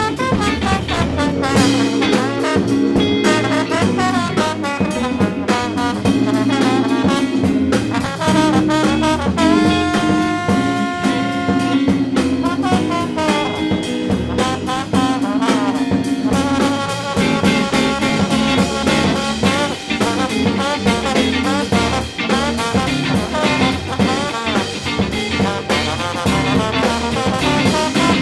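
Upbeat swing-style jazz music with brass and a steady drum beat.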